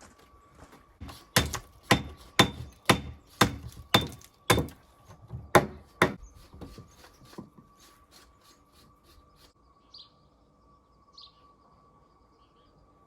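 A hammer striking stone, about ten hard blows roughly two a second, then lighter, scattered knocks that die away; a bird chirps twice near the end.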